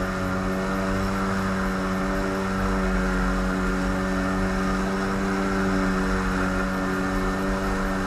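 Boat engine running steadily at constant speed, a steady drone with no change in pitch.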